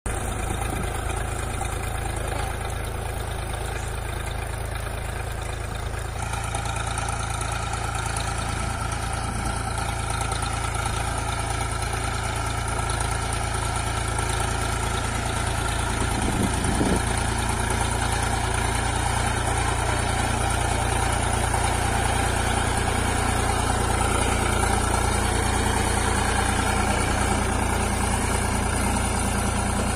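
Swaraj 744 FE tractor's three-cylinder diesel engine running steadily at slow field speed while pulling a sugarcane planter, with a sound that gets a little fuller about six seconds in.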